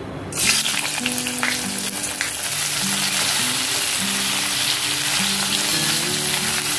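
Steamed bitter gourd slices dropped into hot oil in a stainless steel kadhai, setting off a sudden sizzle about half a second in. They keep frying with a steady sizzle while a wooden spatula stirs them.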